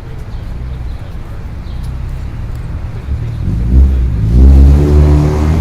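Street traffic rumbling, then about three seconds in a large road vehicle's engine accelerating close by, rising slightly in pitch and growing loud.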